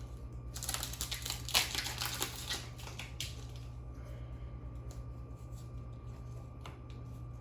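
Foil trading-card booster pack crinkling and tearing as it is opened, for about three seconds, then quieter handling with a few light ticks.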